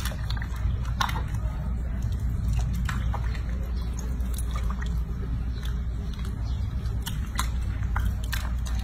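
Soapy bathwater sloshing in a sink as hands wash a baby monkey. Small splashes and drips are scattered over a steady low hum.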